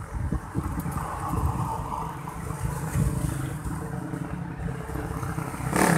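Wind buffeting the microphone of a camera held by a cyclist riding along a road, an uneven rumble with traffic mixed in. It swells into a louder rush just before the end.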